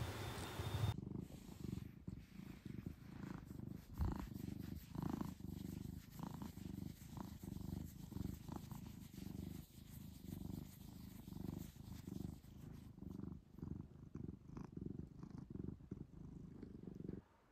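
A brown tabby-and-white domestic cat purring close up while it is stroked. The purr is low and steady, swelling and fading with each breath, and starts about a second in.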